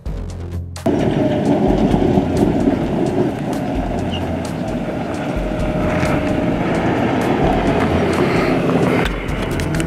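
BTR armoured personnel carrier driving on a gravel track: a steady engine rumble and a dense rattle of the hull and tyres, starting suddenly about a second in and running on loudly, with a faint steady whine.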